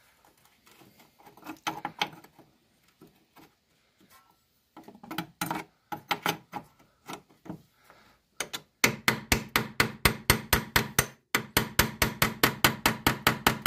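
A 17 mm wrench working a bolt. There are scattered metallic clinks at first, then from about nine seconds in a fast, even run of metal clicks, about five a second, with a short break near eleven seconds, as the fastener is turned.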